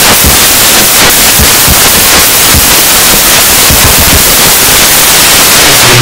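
Loud, steady hiss-like rushing noise, like static, with scattered low thuds under it.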